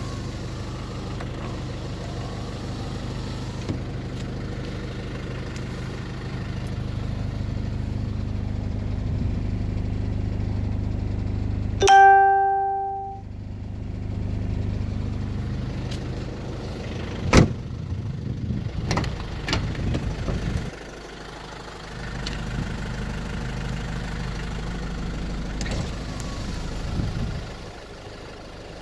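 Isuzu Bighorn's 2.8-litre 4JB1-T turbo-diesel idling steadily. About twelve seconds in a loud single chime rings and fades, and a few seconds later there is one sharp knock.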